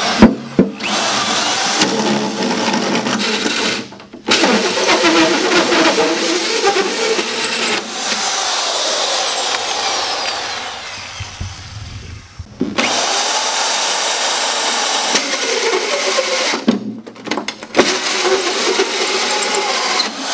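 Corded electric drill driving a 4-inch carbide-tipped hole saw through a boat seat base panel. It cuts in several long runs with brief stops between them, and around the middle the motor winds down with a falling whine before the drill starts up again.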